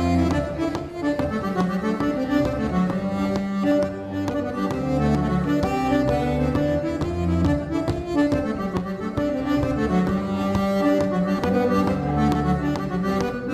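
Diatonic button accordion played solo: a continuous melody on the treble buttons over a moving bass line and chords.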